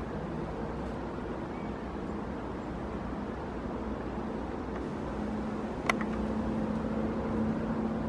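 Steady low rumble of distant road traffic. A low hum joins it about five seconds in, and there is a single sharp tap about six seconds in.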